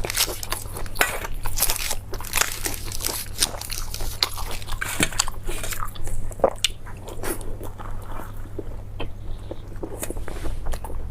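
Close-miked eating: crunchy biting and chewing of food, with many irregular sharp crunches and crackles.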